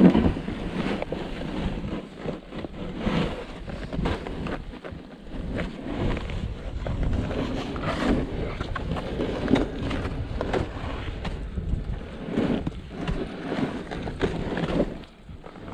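Wind buffeting the microphone in a low rumble, with scattered knocks and rustles.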